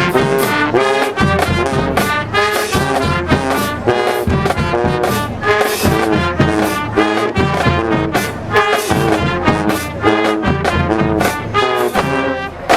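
High school marching band playing in the stands: a brass section of trombones and trumpets playing short, punchy notes over a steady drum beat.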